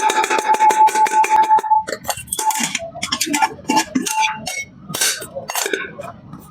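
Metal clattering and clinking, as of pressure cooker parts being handled: a fast run of ticks over a steady tone for about the first two seconds, then separate irregular knocks.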